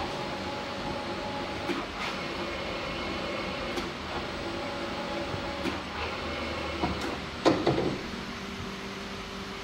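Cold-press pizza dough opening machine running, a steady mechanical hum with a few knocks while its press head holds down on the dough. About seven and a half seconds in there is a louder clunk and rattle as the head lifts, and after that the hum settles to a single tone.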